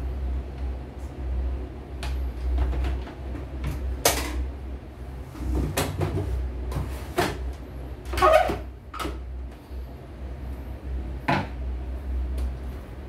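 Plastic housing of a CNY portable embroidery machine knocking and clattering on a wooden workbench as it is handled and stood upright, with a handful of separate sharp knocks, the loudest about eight seconds in. The machine is switched off.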